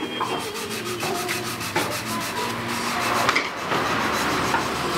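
Wood being rubbed by a hand tool in quick, even strokes, then more continuous rubbing.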